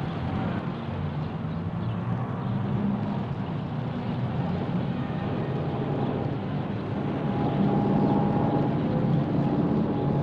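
Steady low rumble of motor traffic, with a faint steady whine coming in about seven seconds in as it grows slightly louder.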